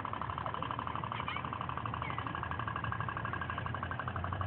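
Toy pop-pop steam boat running, its heated water-tube engine making a rapid, even stream of pops.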